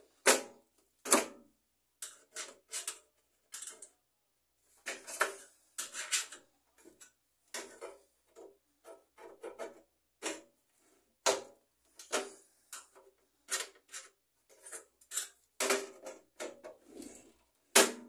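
Irregular short metal clicks and scrapes from cutting pliers and a thin screwdriver on the microwave's sheet-steel base plate, snipping and prying the crimped tabs that hold the turntable-motor cover plate.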